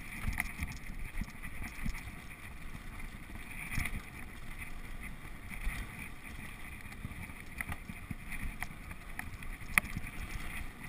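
Mountain bike rolling fast over a dirt trail: a steady rumble of knobby tyres on the ground, with rattles and scattered sharp knocks from the bike, one louder knock near the end, and wind buffeting the microphone.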